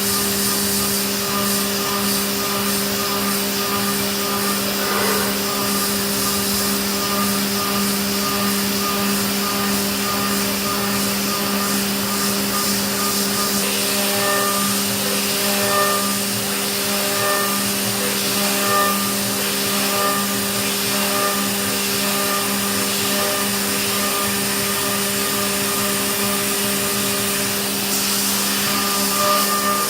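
Haas VF-2SS CNC vertical mill machining aluminium: a steady machine hum and hiss, with short high whine tones from the cutting that come and go from about halfway through.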